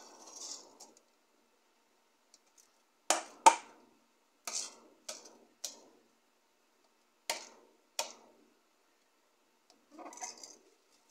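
Dry uncooked rice pouring from a plastic measuring cup into a pan, then about seven sharp, irregular knocks as the cup is tapped against the pan to empty it, and a short trickle of rice again near the end.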